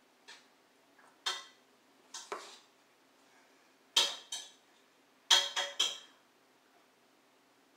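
A small fork and a ceramic bowl clinking and knocking against a plastic high-chair tray as a toddler eats: about eight light knocks and clinks, the sharpest, ringing ones around four seconds in and a quick run of three just after five seconds.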